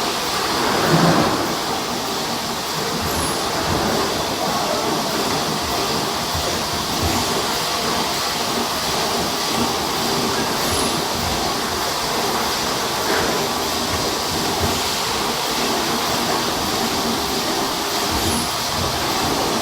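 Automatic cough syrup bottle filling line running: a steady mechanical clatter from the machinery, with a brief louder swell about a second in.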